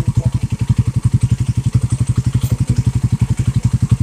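Suzuki Raider 150 Fi's single-cylinder engine idling with a steady, even, fast pulsing beat.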